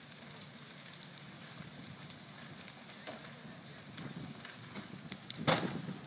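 A large structure fire crackling steadily, with scattered small pops and one sharp loud crack about five and a half seconds in.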